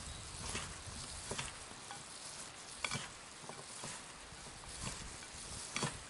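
Wooden spoon stirring a moist breadcrumb-and-vegetable stuffing in a bowl: soft mixing scrapes with scattered irregular clicks of the spoon against the bowl.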